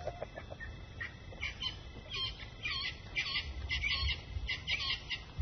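A wild bird calling at dusk: a quick series of short, high notes, starting about a second and a half in, over the steady high trill of a cricket.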